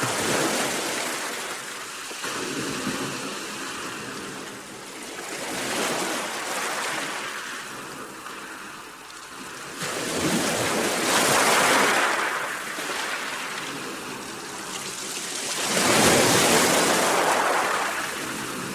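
Sea waves breaking, the surf swelling and falling away every few seconds, with the two biggest surges about ten and sixteen seconds in.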